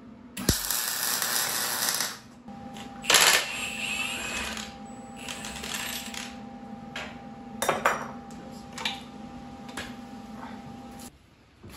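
A cordless power tool runs for about a second and a half on bolts at a solid front axle's steering knuckle, then wrenches and parts clank sharply against the steel axle several times.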